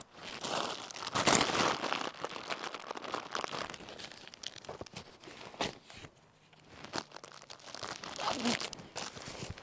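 Thin plastic bag crinkling and rustling as it is handled and stuffed into a backpack, in a string of irregular bursts with a short lull about six seconds in.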